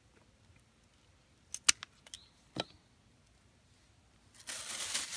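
Pruning shears snipping thin bamboo sticks: a few sharp clicks a little over a second and a half in, the loudest near the start of the group. Near the end a plastic produce bag starts to crinkle.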